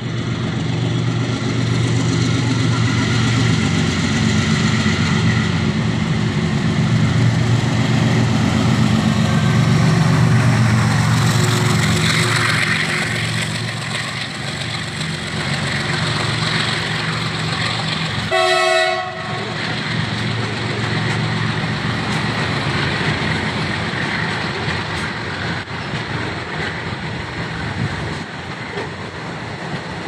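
WDG4G diesel locomotive's 16-cylinder two-stroke EMD engine running hard under full acceleration as it passes, its low throb strongest over the first half. Then the wheels of the freight wagons roll over the rails. A short horn blast sounds about two-thirds of the way through.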